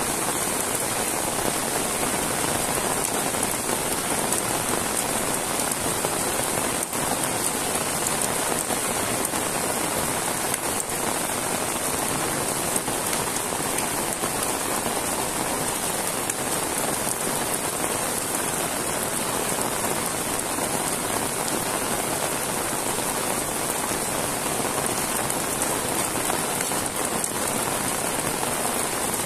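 Heavy rain falling steadily on a wet paved road and the grass and rice fields beside it, an even hiss with no letup.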